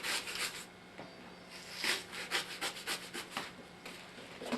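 Knife slicing across a mock large intestine: a string of short scraping cuts at an uneven pace, loudest about two seconds in.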